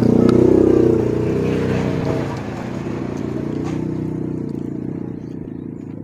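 A passing motor vehicle's engine running, loudest in the first second and fading steadily over the next few seconds as it moves away.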